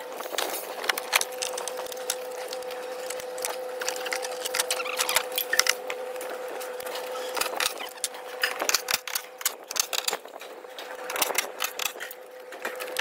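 A steady machine hum with frequent sharp clicks, knocks and metallic rattles over it, the sounds of work on a car's underside in a repair shop.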